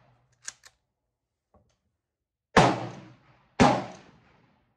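Two rifle shots about a second apart under the roof of a covered shooting range, each a sharp crack with a short echoing tail. A couple of faint clicks come before them.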